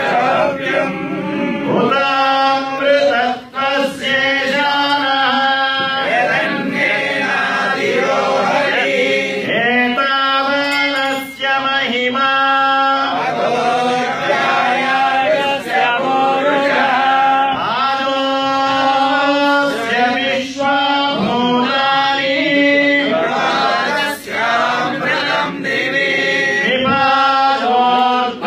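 A group of voices singing a Hindu devotional chant together.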